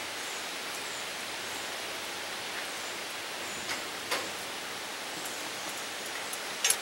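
A few light clicks of a spoon against a cast-iron Dutch oven as rice is pushed down under the broth, over a steady hiss. The clicks come about four seconds in and again just before the end.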